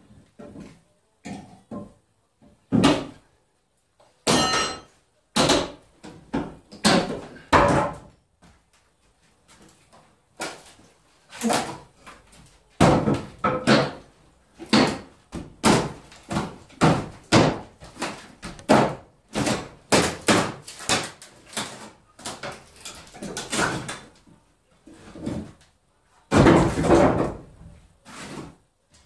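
Hammer blows on wooden wall framing as a window opening is demolished: a long series of irregular hard knocks, coming in a quick run of about one or two a second through the middle stretch. A brief high squeak about four seconds in.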